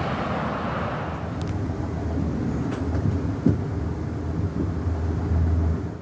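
Passenger train running on the rails, heard from inside the carriage: a steady low rumble with a few faint clicks and one sharp knock about three and a half seconds in.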